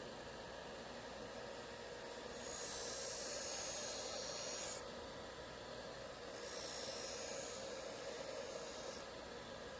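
Bench grinder running steadily with a wire wheel, as a heat-treated steel knife blade is pressed against it twice for a few seconds each, giving a hissing scrape as the wheel works at the scale. The wire wheel is not taking the scale off well.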